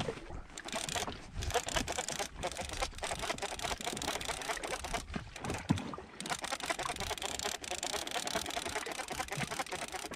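Small waves lapping against the tubes of an inflatable boat drifting at sea: a steady wash with many small, irregular splashes.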